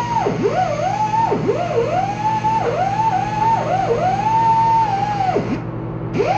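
Air-powered rotary sanding tool whining at high speed. Its pitch sags and recovers again and again as it is pressed into the work, with deeper drops about half a second in and near the end. A steady low hum runs underneath.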